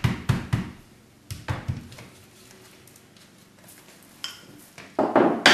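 Wooden mallet tapping woven fiber rush strands down on a chair seat: about half a dozen dull taps in the first two seconds, then a pause. A brief, louder clatter comes near the end.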